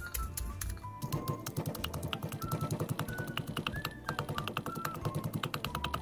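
Wooden pestle pounding dried chillies and garlic in a clay mortar: quick, even knocks, several a second, settling into a steady rhythm about a second in. Background music plays throughout.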